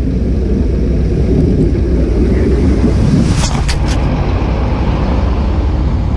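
Steady low rumble of a vehicle on the move, with a few brief clicks about three and a half seconds in.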